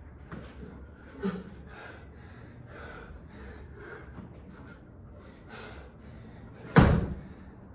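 Heavy, rapid breathing of an athlete gasping for air mid-workout, a puff about every half second. A single loud thump comes near the end.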